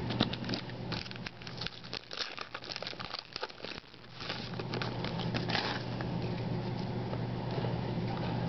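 Trading card packs and cards being handled: crinkling foil wrappers and rustling cards as sharp small clicks, thinning out after about six seconds. A steady low hum runs underneath.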